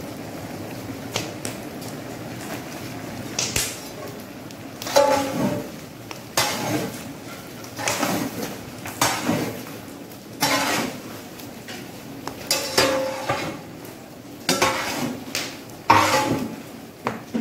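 A long metal paddle scrapes and knocks against the sides of a large metal cooking pot as a big batch of chopped vegetables is stirred. The strokes come about one every second or two, starting about five seconds in, over a steady low rumble.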